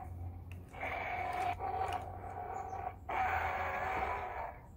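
Playmates Mega Kong toy figure's electronic sound feature playing recorded Kong roars through its small built-in speaker, set off by twisting the figure's body. There are several tinny roars in a row, each a second or so long.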